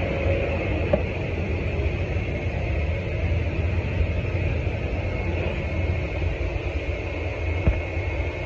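Steady low machinery rumble with a hiss over it, heard inside an aircraft's lower-deck cargo hold, with one sharp knock near the end.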